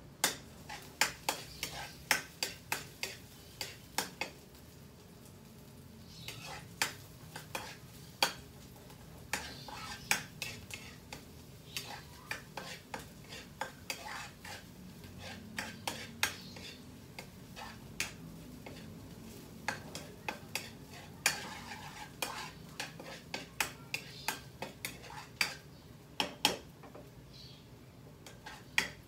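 A metal spatula clinking and scraping against a frying pan in runs of a few strikes a second as garlic is stirred in hot oil, with a light sizzle underneath. The garlic is being sautéed first, kept lightly golden.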